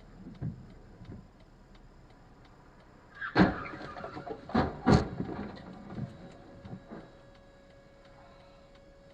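Vehicle collision recorded through a dashcam: a run of sharp bangs and knocks begins about three seconds in, with the loudest hits near three and a half and five seconds, followed by a few smaller knocks and a faint steady tone.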